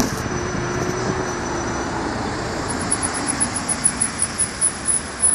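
Steady street traffic noise. From about halfway through comes a fast, even run of short high-pitched ticks, about four or five a second.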